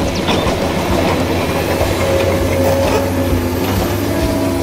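Radio-controlled model excavator working, a steady electric-motor whine with gear rattle and clicks as it swings its arm and bucket over the dump truck.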